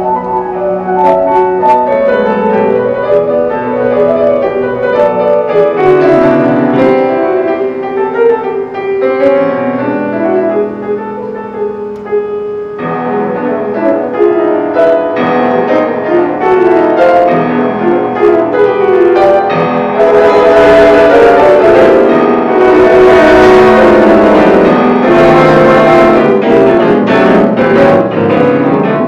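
Grand piano and theatre organ playing a duet, the piano carrying dense chords. The music swells louder about two-thirds of the way through.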